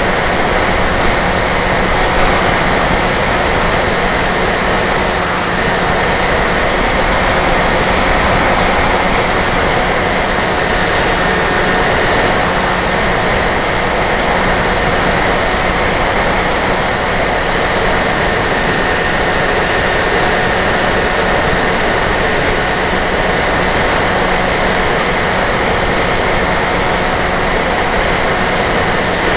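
Steady rush of wind and whine of a Dynam Hawk Sky RC plane's electric motor and propeller in flight, picked up by the onboard camera's microphone. The sound holds level and unbroken throughout.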